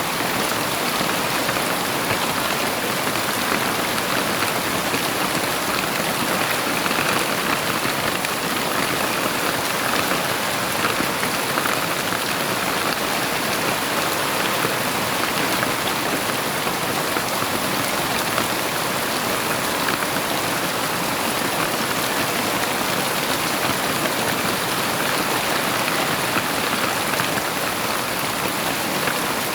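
Heavy rain falling steadily, a dense even patter of drops with no thunder.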